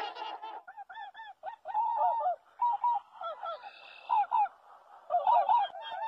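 Geese honking: short repeated calls from several birds, some overlapping, loudest in a quick cluster about five seconds in. Music fades out just at the start.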